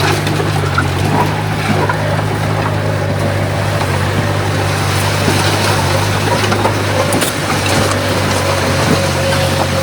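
Komatsu D51PX bulldozer's diesel engine running steadily, with a faint steady whine that grows clearer in the second half and scattered light clicks.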